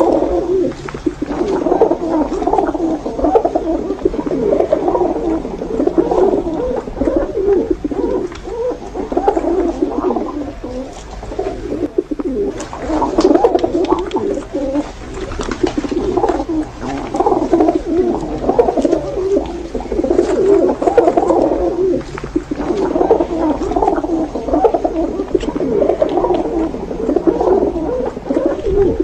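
Several domestic pigeons cooing continuously, their low warbling calls overlapping.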